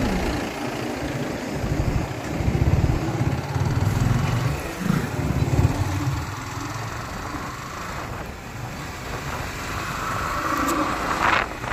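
Yamaha motorcycle engine running under way in fourth gear at about 30 km/h, with wind noise. The engine is loudest in the first half and eases off after about six seconds.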